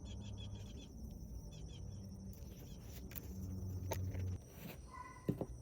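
Faint outdoor background: a low hum that swells and fades twice, with soft repeated chirping near the start and a short pitched call near the end.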